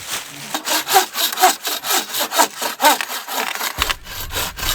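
Bucksaw cutting through a log, rasping back-and-forth strokes about two a second with a short squeak on each stroke. A low rumble joins near the end.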